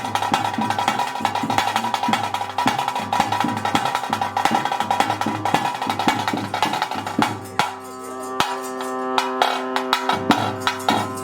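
Bhuta kola ritual music: fast, dense drumming over a steady held tone. About eight seconds in the drumming thins to scattered strokes and a lower sustained note carries on.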